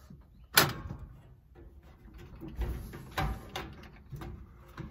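Handling knocks from a portable gas stove sitting in a steel tool-chest compartment: one sharp metallic click about half a second in, then several softer knocks and taps.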